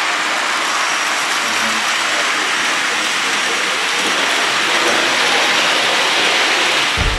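HO scale model steam locomotive and freight cars rolling along the layout's track: a steady, even rushing hiss of wheels on rail. Guitar music comes in at the very end.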